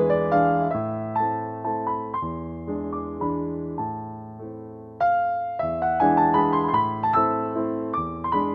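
Background piano music: a gentle melody over sustained chords, the notes struck and decaying, with a fresh phrase coming in louder about five seconds in.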